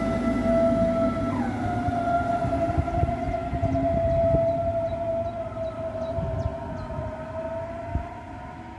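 S-Bahn München Class 423 electric multiple unit pulling away from the platform, its traction drive giving a steady whine that jumps up in pitch about a second and a half in and then slowly sinks, over a rumble of wheels on the rails. The sound fades as the train draws off.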